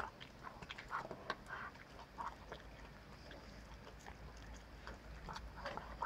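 German shepherd eating a plum: faint, irregular wet smacking and clicking as it licks pieces off the floor and chews with its mouth open.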